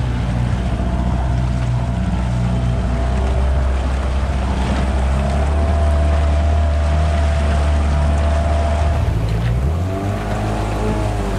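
Small outboard motor on an inflatable dinghy running steadily, pushing a sailboat from alongside, with water washing past the hulls.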